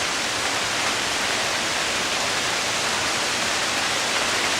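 Torrential downpour: heavy rain beating on pavement and a roof, a steady, even hiss.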